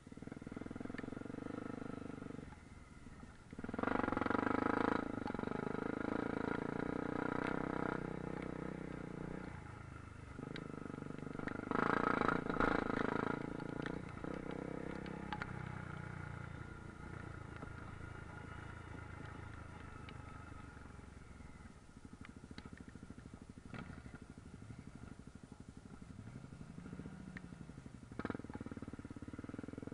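Honda Africa Twin's parallel-twin engine running on a dirt trail, opened up hard about four seconds in and again around twelve seconds, then settling to a steadier, lower run. Near the end the engine note glides down and back up.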